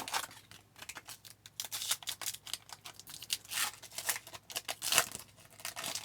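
Crinkling and rustling of 1998-99 Topps Finest hockey cards and their pack wrapper being handled, a run of short crisp snaps with a few louder rustles.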